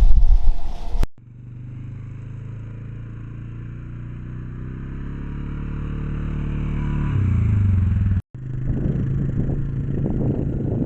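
A motor vehicle's engine running, a steady hum that grows gradually louder and changes pitch about seven seconds in. It is preceded by about a second of loud low rumbling, and after a brief dropout near eight seconds it continues mixed with rougher noise.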